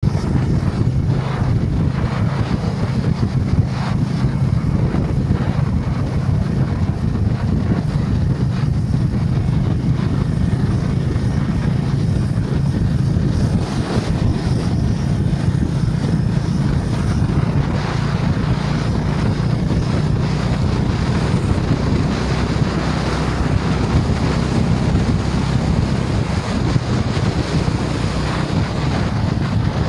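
Honda H'ness CB350's single-cylinder engine running steadily at cruising speed, under heavy wind rushing over the camera microphone.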